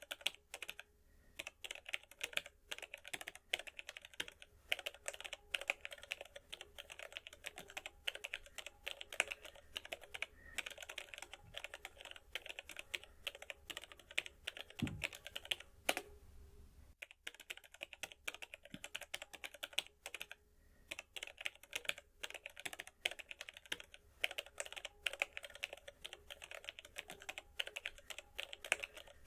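Typing on a computer keyboard: rapid, irregular key clicks in continuous runs, broken by brief pauses, with a sparser stretch about halfway through that holds one heavier, deeper key strike.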